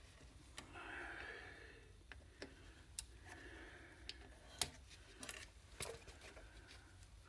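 Faint, scattered clicks and light rustling of small electronic scrap parts being handled, with a sharper click about four and a half seconds in.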